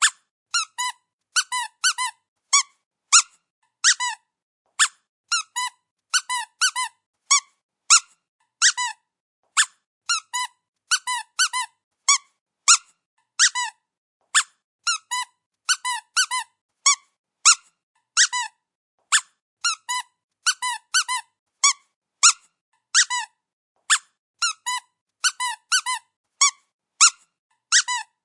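Dog squeaky toy squeezed over and over: short, high squeaks, many of them in quick pairs, about one to two squeezes a second with silence between.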